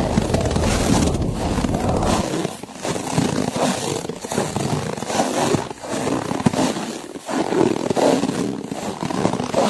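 Blizzard wind gusting, a rushing noise that swells and drops every second or two, with a deep rumble that falls away about two seconds in.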